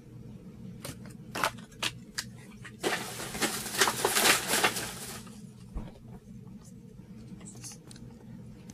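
Light clicks of a die-cast toy car being set down on a tabletop, then a couple of seconds of rustling handling noise. A steady low hum runs underneath.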